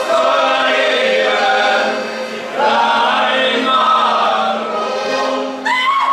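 Austrian folk group singing together in two long phrases with a short break between them, over a steady low held note from the accompaniment.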